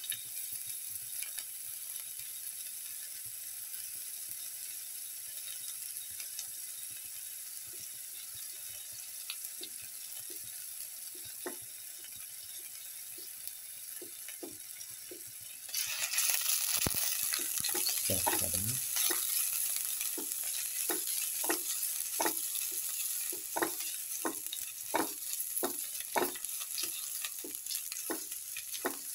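Sliced shallots sizzling in hot oil in a stainless steel pan, a steady hiss that turns louder about halfway through, with frequent crackling pops. A spatula stirs them near the end.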